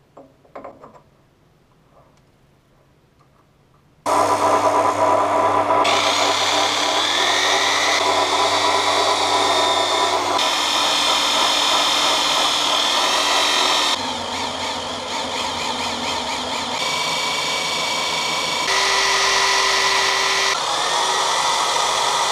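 Electric drill and lathe running while a small metal flywheel is polished: a steady motor whine with the rub of the polishing wheel, starting suddenly about four seconds in after a few faint handling clicks. The pitch shifts in steps several times.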